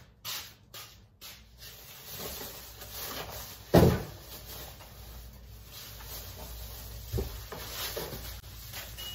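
A few light knocks, then one heavy thud a little under four seconds in and a lighter thud about seven seconds in, over a low steady rumble.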